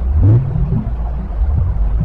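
Steady low rumbling noise from a baby-soothing 'white noise' track, with wavering low tones that rise and fall every second or so.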